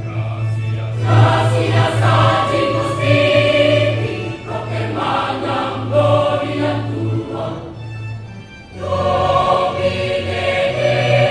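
A choir singing over a steady low held note. The singing drops back briefly about eight seconds in, then comes back in full.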